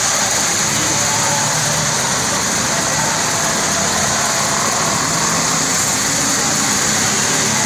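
Heavy rain pouring steadily on a flooded street, with a constant hiss, while cars and motorbikes run through the standing water, their tyres splashing and engines running.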